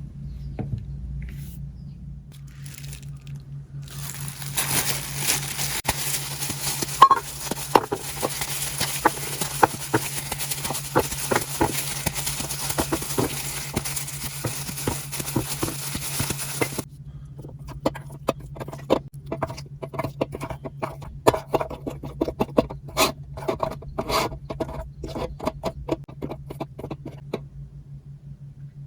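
Close-up food-preparation handling sounds: a dense run of scraping and crackling for about twelve seconds, then a string of separate sharp crackles and clicks. A faint steady low hum runs underneath.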